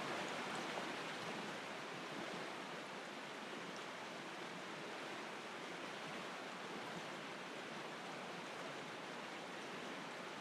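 Steady, even hiss of outdoor background noise, with no distinct sounds standing out.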